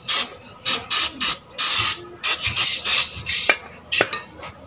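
An aerosol cleaner can spraying a greasy car part in a quick series of short hissing bursts, one of them longer about a second and a half in. Two sharp metallic clinks follow near the end.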